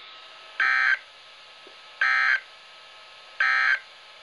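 Emergency Alert System end-of-message signal: three short bursts of buzzy digital data tones, about a second and a half apart, the coded 'NNNN' that marks the end of the warning broadcast.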